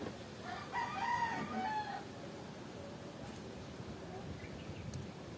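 A rooster crowing once, about half a second in, a single call lasting about a second and a half.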